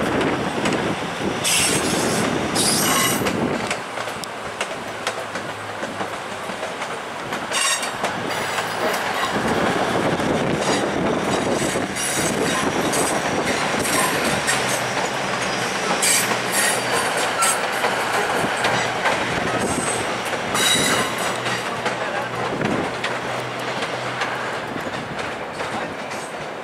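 Three-car Union Pearson Express diesel multiple unit rolling over the station approach's tracks and switches, its wheels clacking over rail joints. Short high-pitched wheel squeals come several times.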